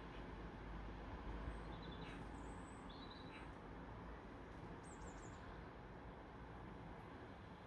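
Faint, steady outdoor ambience, a low even rumble of distant city noise, with a few short, high bird chirps about two, three and five seconds in.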